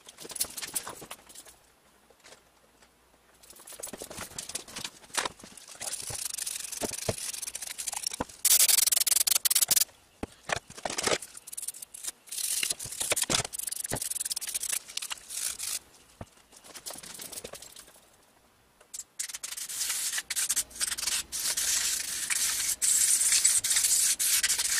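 A stiff brush scrubbing an Onan generator carburetor body, with a rough scratching sound in three long stretches and small clicks and knocks between them.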